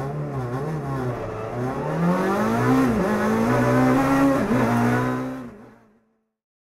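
Rally racing car heard from inside the cabin, accelerating hard: the engine revs climb, drop back sharply at each gear change and climb again, then fade out about six seconds in.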